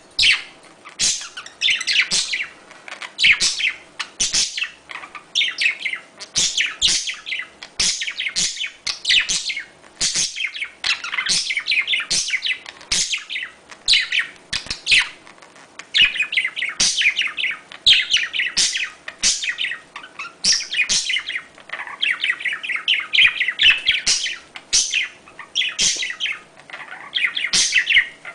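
Budgerigars chirping and warbling in rapid, continuous bursts of high calls with only brief pauses: the chatter of courting budgies.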